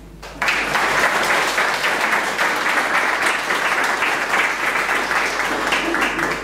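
Audience applauding, starting about half a second in and dying away at the end.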